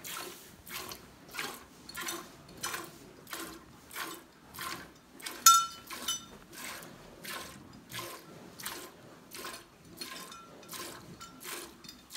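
Streams of milk squirting into a stainless steel pail during hand milking, in a steady rhythm of about three squirts a second. About halfway through, a sharp metallic clink rings out from the pail, with a smaller one just after.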